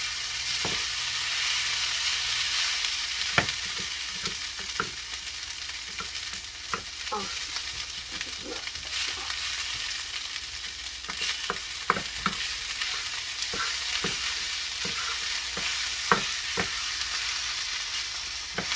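Food sizzling in oil in a hot frying pan, with irregular clicks and scrapes of a utensil as the food is stirred and kept moving so it doesn't burn.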